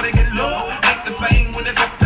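Hip-hop music with a rapped vocal over a heavy bass beat.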